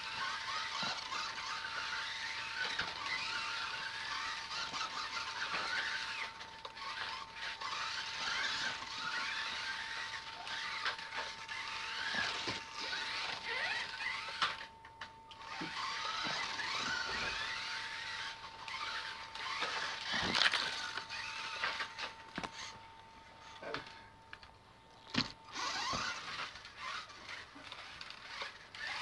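Kyosho Mini-Z 1:28-scale electric RC cars racing, their small motors and gears whining high and gliding up and down in pitch with the throttle, with tyre squeal. A few sharp knocks come near the end, and a thin steady tone runs underneath until near the end.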